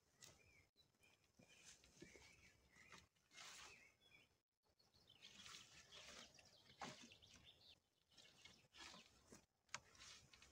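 Faint rustling and swishing of pine boughs, needles brushing together as the branches are handled and laid over a pole frame, in repeated short bursts. A few small bird chirps in the first few seconds.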